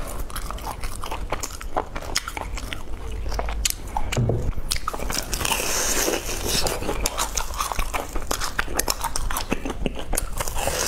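Close-miked eating of a dessert: bites and chewing with many sharp, crisp clicks, and a stretch of hissy, crackling noise around the middle.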